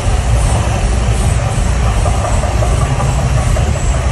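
Mirage volcano show erupting: a loud, deep, continuous rumble mixed with the roar of its gas fire jets, steady throughout with no break.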